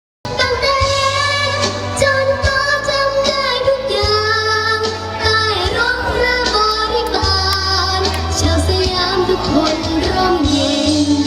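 A song with a high female voice singing a wavering, gliding melody over backing music with a heavy bass line. It starts abruptly a moment in, after silence.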